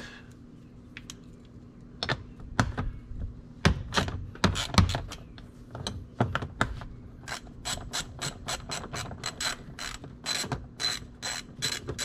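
Hand ratchet with a 10 mm socket on an extension clicking as it backs out a short door-panel bolt. The clicks come unevenly at first, then as a quick steady run of about four a second for the last few seconds.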